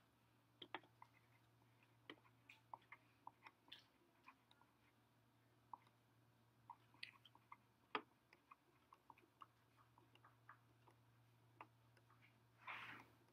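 Faint, irregular light clicks and taps of a stylus on a tablet screen during handwriting, with a short soft hiss near the end.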